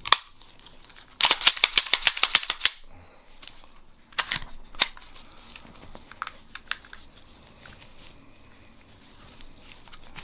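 Sharp metallic clicks and rattles of a Glock pistol's slide and frame being worked together during reassembly: a quick run of a dozen or so clicks, then a few single sharp clicks.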